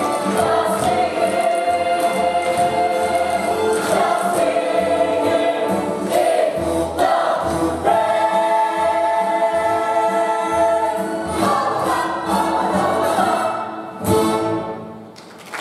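Stage musical number: an ensemble of voices singing together in chorus over an accompaniment, ending with a short final accent about fourteen seconds in as the music dies away.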